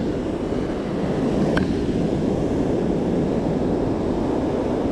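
Surf breaking on the shore, mixed with wind rushing over the microphone: a steady, low rushing noise. There is one brief click about a second and a half in.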